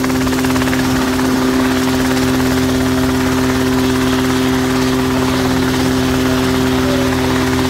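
Light helicopter's engine and rotors running at a steady, unchanging pitch.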